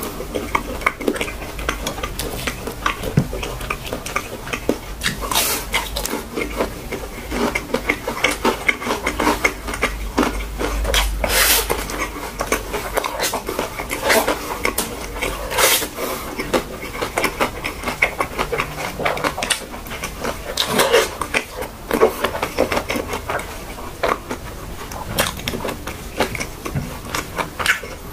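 Close-up eating sounds: chewing and other mouth noises, with a spoon clinking and scraping on a plate between bites, in many short irregular clicks and crackles.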